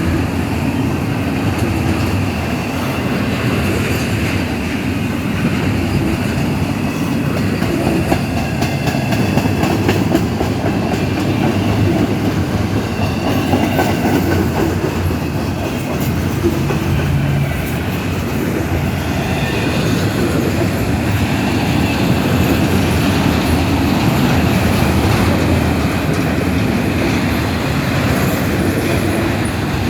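CSX intermodal freight train's cars rolling steadily past, wheels clacking over the rails, with now and then a faint wheel squeal.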